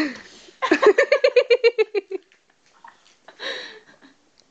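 A young woman giggling: a short high cry at the start, then a quick run of rapid giggles for about a second and a half, and a brief vocal sound near the end.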